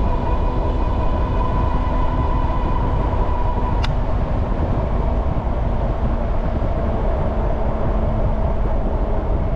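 Riding an Ariel Rider Grizzly electric bike: steady wind rumble on the microphone with a steady electric motor whine. The whine fades out about four seconds in, where a single click sounds.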